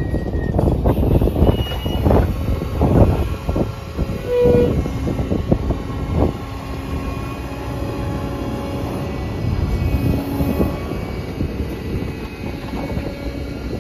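Road-rail excavator and its rake of loaded flat wagons rolling over the level crossing, with dense clatter of wheels over the rails and crossing for the first six seconds. A short horn toot sounds about four and a half seconds in.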